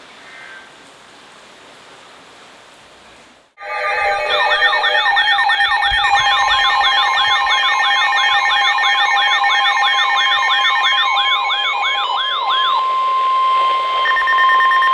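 After a faint hiss, several emergency alert tones go off at once about three and a half seconds in, loud: a siren-like up-and-down sweep repeating two to three times a second over steady alarm tones. The sweeps stop near the end, leaving one steady tone, the weather-radio alarm that comes ahead of a tornado warning broadcast.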